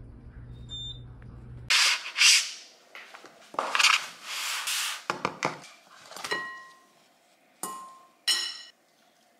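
Paper takeout packaging and a cardboard takeout box rustling and scraping as they are handled, after a low hum in the first second and a half. Then from about five seconds in, a series of sharp clinks on a glass bowl as food is served into it, several of them ringing briefly.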